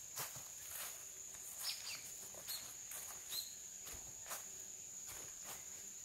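Footsteps crunching on a path deep in dry fallen bamboo leaves, at a steady walking pace, over a steady high-pitched tone. A few short high chirps come about two to three and a half seconds in.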